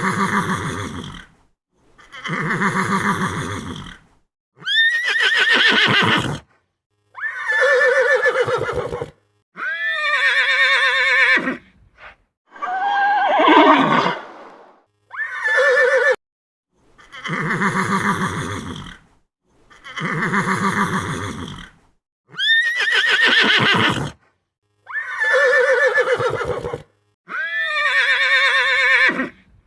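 Horse neighing: a series of about a dozen separate whinnies, each roughly two seconds long with short silent gaps between them, several wavering and falling in pitch.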